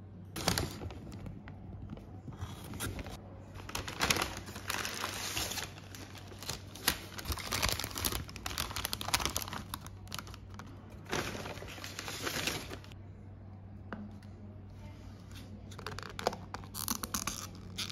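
Thin white paper bags rustling and crinkling as they are opened and handled, in irregular bursts over a faint low hum. Near the end, a plastic lid on a paper cup is handled.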